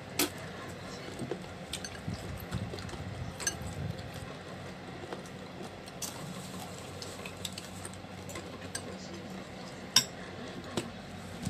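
Metal fork and ceramic soup spoon clinking and scraping against a ceramic bowl of noodle soup while eating, in scattered light clinks, with one sharper clink near the end.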